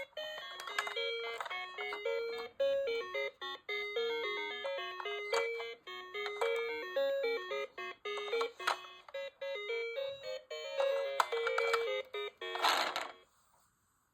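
Toy fire truck's electronic sound module playing a tinny, bell-like melody of short notes. It ends with a brief rattly burst near the end, then stops.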